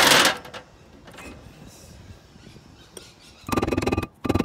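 A sharp metallic clank at the start, then a hand socket ratchet clicking very rapidly in a run of fast, ringing clicks near the end, as bolts on the brake hub are worked.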